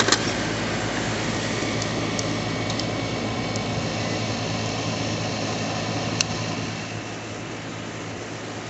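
Trane air conditioner's outdoor unit running after restart, its compressor humming steadily under the rush of the condenser fan, with a few faint ticks. It runs on a freshly fitted hard-start kit and draws a normal current.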